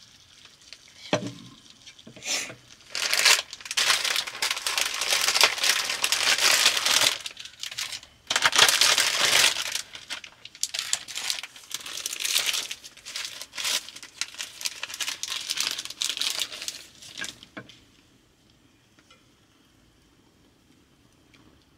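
Plastic packaging of a udon noodle pack crinkling and tearing as it is opened by hand, in irregular rustling bursts that stop a few seconds before the end.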